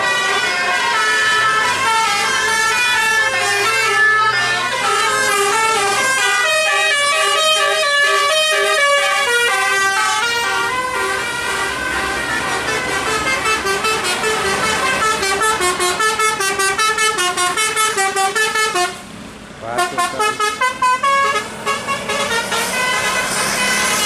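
Basuri 'telolet' multi-tone bus horn playing a melody in quick stepped notes. In the second half it turns to rapid staccato toots, breaking off for a moment about two-thirds through.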